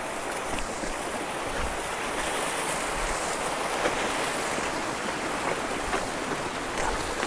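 Steady rushing of flowing water, like a stream running high after heavy rain, an even hiss with no breaks.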